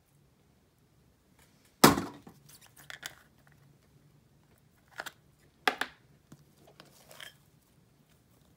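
Slime and plastic slime jars being handled over a glass bowl: scattered crackly, squishy sounds as slime is scooped and squeezed out of the jars. A sharp knock about two seconds in is the loudest sound, with shorter knocks near the middle.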